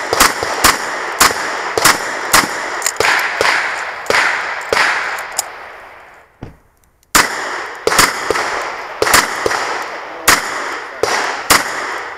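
A Smith & Wesson 929 9mm revolver firing fast strings of shots, roughly two a second, each shot with a short ringing tail. The shooting breaks off briefly about six seconds in, then a second string runs to the end.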